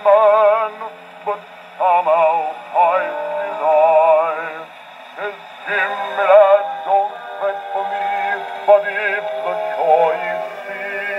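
Male bass voice singing with wide vibrato over accompaniment, played back from a 12-inch Edison Bell Velvet Face shellac 78 rpm record on a wind-up portable gramophone. The sound is thin and boxy, with no deep bass and no top.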